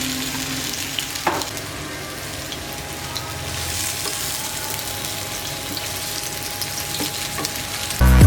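Prawns coated in a gram-flour and masala batter sizzling steadily as they shallow-fry in hot oil on a tawa, with a single click about a second in. Loud music starts just before the end.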